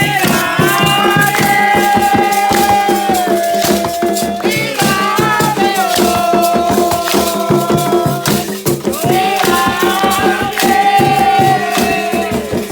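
Candomblé ritual chant with a rattle shaken in a fast, steady rhythm throughout. Over it a voice holds long notes in three phrases, each a few seconds long.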